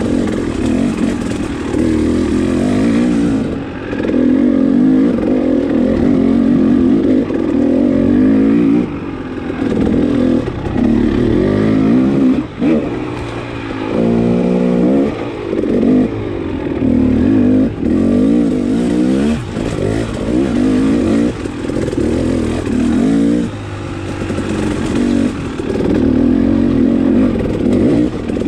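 KTM dirt bike engine revving under load on a rocky climb, the revs repeatedly dropping and picking up again as the throttle is eased and opened. About fourteen seconds in the revs climb sharply, just after a single sharp knock.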